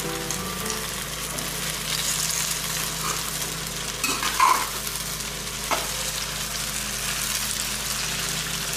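Green caterpillars sizzling as they fry in a pan, with a steady hiss. A metal spatula stirs them and knocks against the pan a couple of times a little past halfway.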